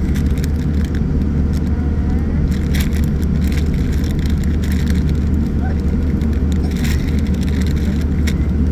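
Cabin noise of a Boeing 787-9 airliner taxiing: a steady, loud low rumble of engines and airframe, with scattered clicks and rattles.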